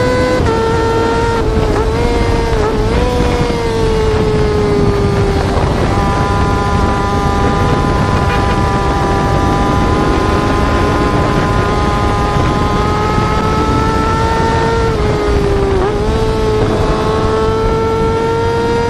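Yamaha R6 inline-four sport bike engine held at very high revs, a steady high-pitched wail. The pitch wavers and dips briefly near the start and again near the end before climbing back.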